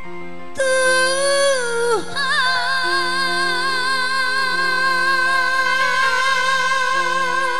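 A Malay song: a singer comes in about half a second in and slides down in pitch, then holds a long note with vibrato over the backing music.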